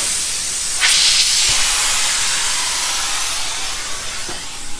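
Compressed air hissing out of a pipe-lining packer (inflatable bladder) as it is deflated through its air line once the resin liner has cured. A steady, strong hiss that grows louder about a second in and then slowly eases.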